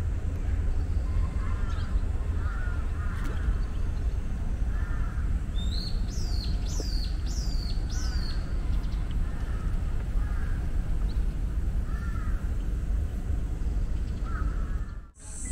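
Birds calling over and over in short arched calls, with a run of four high, falling calls in the middle, over a steady low rumble.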